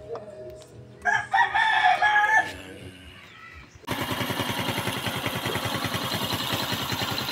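A rooster crows once, about a second in. From about four seconds a motorcycle engine cuts in abruptly and idles steadily with an even, fast pulse.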